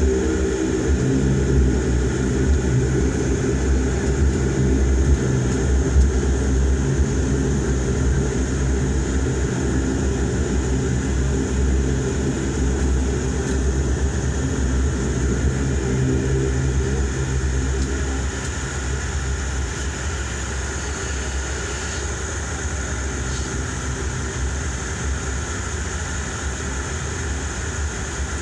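Dash 8-Q400's Pratt & Whitney PW150A turboprop and propeller droning steadily as heard inside the cabin while the aircraft taxis. A low propeller hum weakens about two-thirds of the way through.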